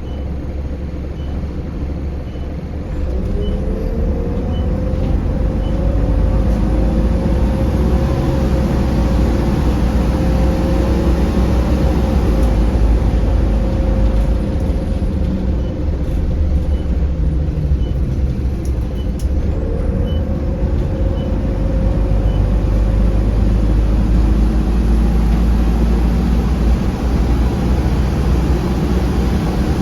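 Optare Solo M900 single-deck bus heard from on board, pulling away. The engine and drive whine rise in pitch about three seconds in and again a little past the middle. A regular indicator ticking runs for a few seconds early on and again before the second pull-away.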